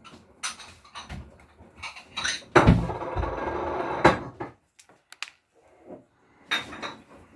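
Kitchen clatter: scattered knocks and clicks of dishes and cupboard doors, with a louder rushing, rumbling noise lasting about a second and a half in the middle.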